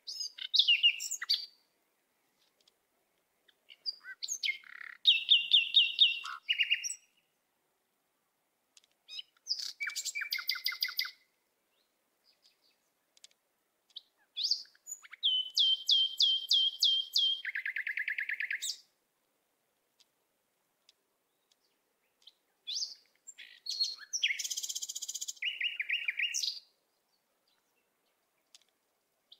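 A small songbird singing in about five separate phrases of fast chirps and trills, each a second or more long with a few seconds' silence between. Some trills step down to a lower note partway through.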